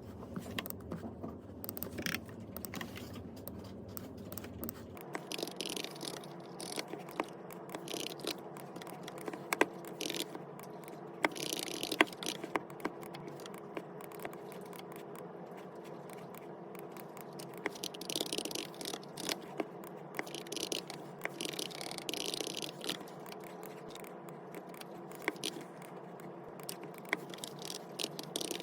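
Rustling and scraping with scattered light clicks and taps, as of objects being handled.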